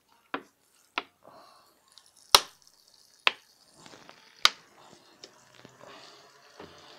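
Watering a potted bonsai from a plastic jug with a perforated cap: a handful of sharp clicks and taps about a second apart, then water starting to run and splash onto the soil and leaves from about four seconds in.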